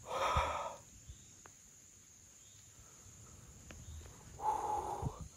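A man's two hard, breathy exhalations about four seconds apart, from a hunter catching his breath after a shot. A steady high insect drone runs under them.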